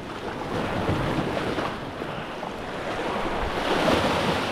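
Ocean waves washing in on a rocky shore, a rushing wash that swells louder toward the end, with wind buffeting the microphone.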